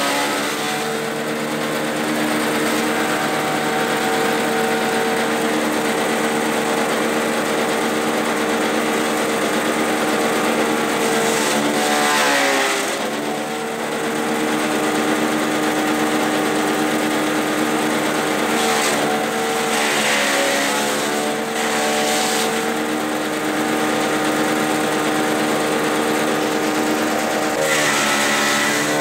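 Grass chopper driven by a small gasoline engine, running steadily at high speed. About four times, a bundle of grass is fed in: the engine's pitch sags under the load and a rush of chopping noise joins in, then the engine picks back up.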